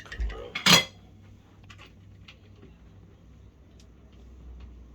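Metal door handle and lock parts clinking and knocking as a handle is fitted to the door: one loud metallic clank under a second in, then light scattered clicks.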